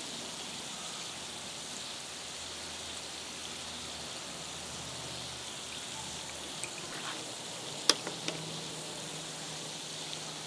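Dilute muriatic acid fizzing on calcite in the rock, a steady soft hiss of bubbling as the calcite dissolves, with a single sharp click about eight seconds in.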